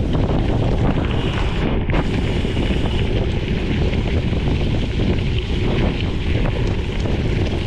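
Wind rushing over a chest-mounted GoPro's microphone while riding a gravel bike, with the tyres rolling over gravel underneath as a dense patter of small ticks.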